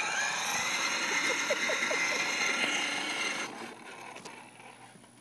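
Child's battery ride-on toy ATV driving, its electric motor and gears whining steadily, then stopping about three and a half seconds in.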